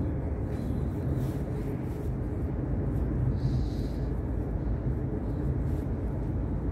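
Steady low rumble of a moving passenger train heard from inside the carriage, with a short, faint higher hiss about halfway through.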